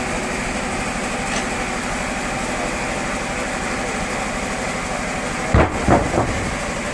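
Sawmill machinery running steadily, with three heavy thumps in quick succession near the end.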